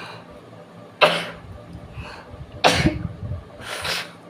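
Two sharp sneezes, about a second in and again a second and a half later, then a softer breathy burst near the end, set off by tickling the nose with a long blade of grass.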